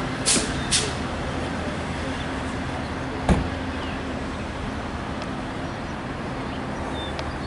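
Long Island Rail Road diesel push-pull train standing at the platform, its engine running with a steady low hum. Two short hisses come about half a second apart near the start, and a single sharp knock about three seconds in.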